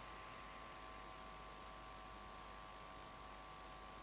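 Faint steady electrical hum with a thin steady whine over hiss: the background noise of an old camcorder tape recording, with no other sound.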